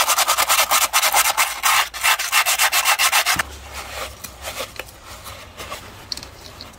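Green abrasive pad scrubbed back and forth in fast, even strokes on the cylinder head's water pump mounting face, cleaning it to a good sealing surface for the new pump. The scrubbing stops abruptly about three and a half seconds in, and fainter wiping with a paper towel follows.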